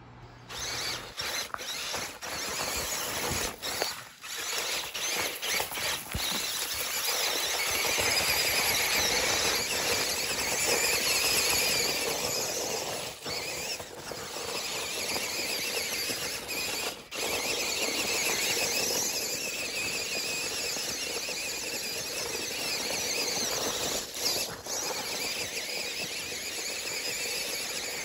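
Electric motors and plastic gear trains of a brick-built RC off-road truck whining as it crawls over dirt and rocks, the whine rising and falling, with a few brief breaks.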